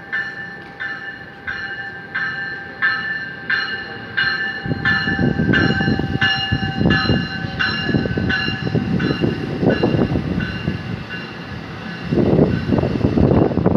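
A train's warning bell ringing in steady strikes, about one and a half a second, fading after about ten seconds. From about five seconds in, the low rumble of the moving train and wind buffeting the microphone rise under it and swell again near the end.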